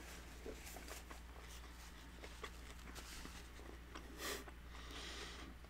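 Faint close-miked eating sounds: small wet mouth clicks from chewing a bite of taco, with soft paper-napkin handling, and a short louder rustle a little after four seconds in.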